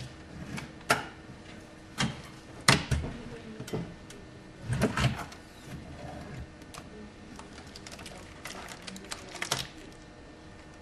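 Clicks and knocks of plastic food trays being set into and lifted out of a manual tray sealer's mould, several sharp clacks with a short clustered rattle about five seconds in, over a faint steady hum.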